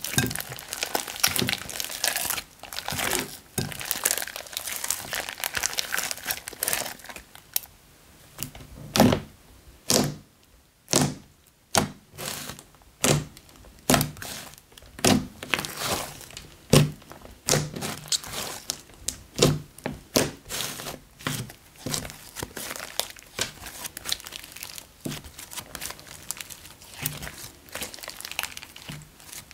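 Hands kneading, stretching and poking a thick slime with foam balls mixed in: wet squishing with many sharp clicks and pops in quick, irregular runs. The pops come louder and more spaced out in the second half.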